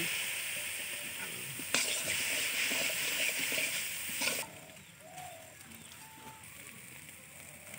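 Potatoes and soya chunks sizzling in hot oil in a large aluminium wok, hissing loudly as chilli powder mixed with water hits the pan, with a couple of sharp metal spatula knocks. The sizzle drops away suddenly about four and a half seconds in, leaving only a faint hiss.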